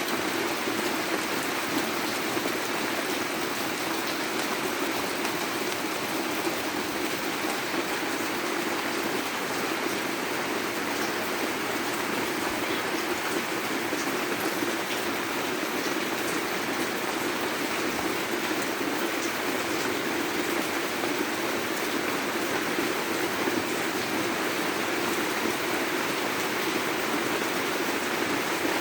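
Steady rain falling, an even hiss of drops with faint scattered ticks of individual drops, unchanging throughout.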